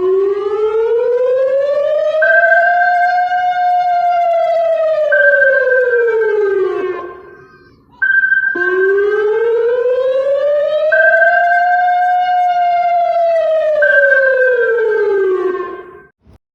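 Civil-defense-style emergency alert siren sounding for an alert test. It wails up and back down twice, each wail about eight seconds long with a brief break between them, and a steady higher tone runs over it with short gaps.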